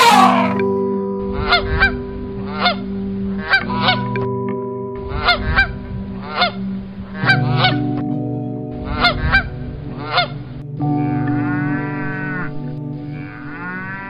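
Waterfowl honking in short, repeated calls, mostly in twos and threes, after the tail end of a loud animal call that fades about half a second in. Two long cattle moos follow near the end.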